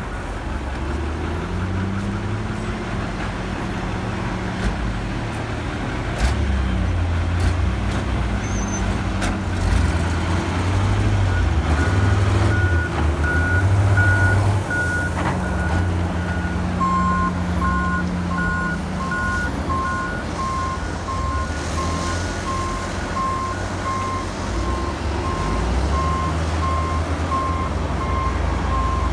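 Caterpillar 336E hydraulic excavator's diesel engine running under load as it swings and dumps bucketfuls of gravel, with the gravel pouring and clattering. A reversing alarm beeps steadily from about ten seconds in, and a second, lower-pitched reversing alarm joins a few seconds later and carries on to the end.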